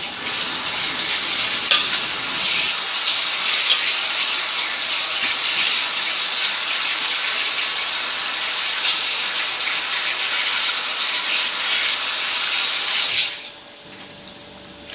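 Hot oil sizzling loudly as binangkal dough balls deep-fry, a steady hiss that cuts off suddenly near the end.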